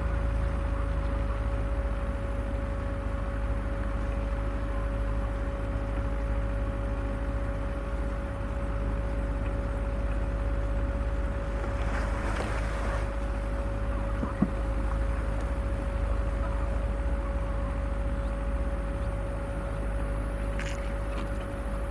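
Off-road vehicle's engine and drivetrain running steadily at low speed, a low rumble with a steady whine over it. About twelve seconds in there is a brief rushing scrape, and a single sharp knock about two seconds later.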